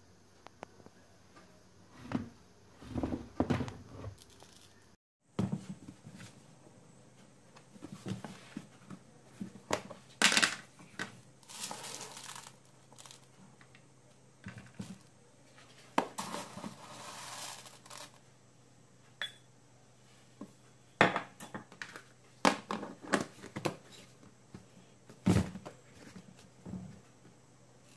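Household handling sounds: crinkling and rustling, broken by scattered light knocks and clicks, with a couple of longer rustling stretches.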